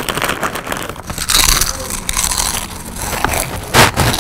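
Loud crunching of kettle-cooked potato chips being chewed with the mouth open, a dense crackle throughout with two loudest crunches, about a second and a half in and near the end.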